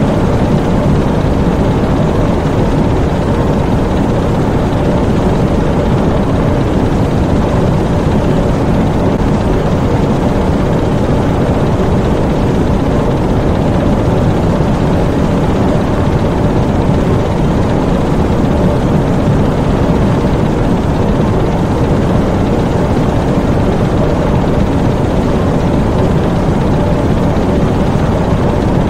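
Diesel engines in a U-boat's engine room running steadily: a dense, even, loud rumble that does not change.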